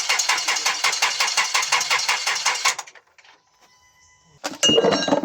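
Nissan Patrol Y61's ZD30 diesel engine cranking on the starter with a rapid, even beat, then the cranking stops about three seconds in without the engine catching to run: the hard start the owner puts down to a failing crankshaft position sensor (code P0336). A short loud noise follows near the end.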